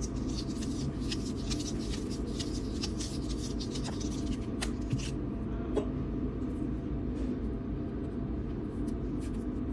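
Light rustles and small clicks of hands handling tape-wrapped batteries and a PVC conduit tube as the batteries are pushed into it, with a couple of sharper clicks around the middle. A steady low hum runs underneath.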